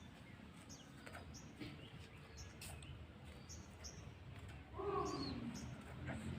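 Small birds chirping: short high chirps repeated every half second to a second. About five seconds in, a louder, lower call falls in pitch.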